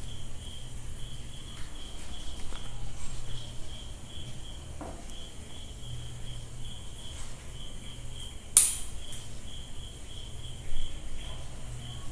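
A cricket chirping steadily in the background: a quick, even pulsing of a high tone. A single loud, sharp click comes about two-thirds of the way through, over a low hum.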